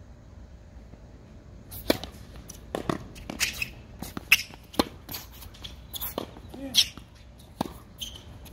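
Tennis rally on a hard court: a string of sharp racket-on-ball hits and ball bounces, starting about two seconds in, with a few short squeaks or scuffs among them.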